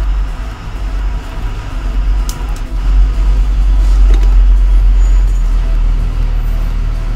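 Steady low rumble of background noise, with a few light clicks as phone parts and glass are handled on the bench.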